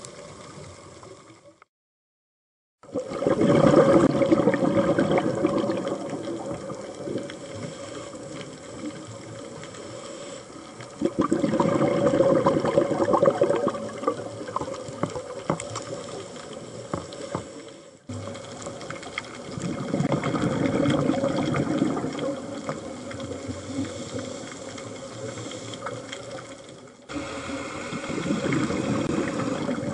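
Scuba diver's exhaled bubbles from the regulator, heard underwater: a bubbling rush that swells for a few seconds about every eight seconds, with quieter stretches between breaths. There is a brief dropout about two seconds in.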